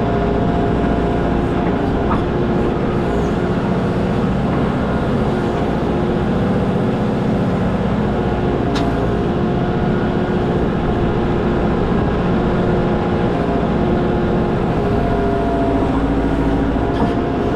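Kubota compact tractor-backhoe's diesel engine running steadily while the backhoe digs into a dirt hillside.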